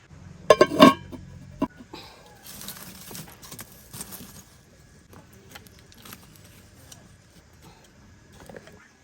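A loud clatter of hard objects knocking together, a quick run of strikes about half a second in and a single knock shortly after, followed by lighter clicks, scrapes and rustling as things are handled.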